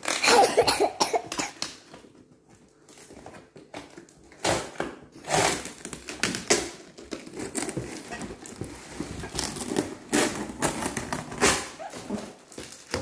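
A cardboard box being opened: packing tape is cut and torn away and the cardboard scrapes and rustles in irregular bursts, loudest in the first second or so.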